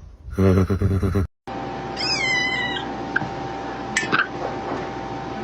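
A tiny kitten calls twice: first a high cry of under a second that falls in pitch, then about two seconds later a short, sharp call. Both come over a quiet room hum, after a second of electronic music that cuts off.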